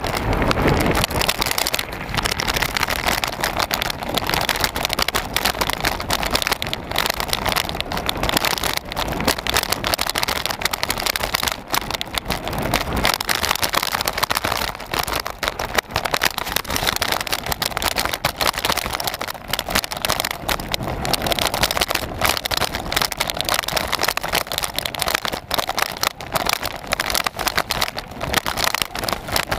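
Onboard sound of a mountain bike riding over a rough dirt and grass farm track: a steady rush of wind and tyre noise with constant rattling and knocking from the bumps.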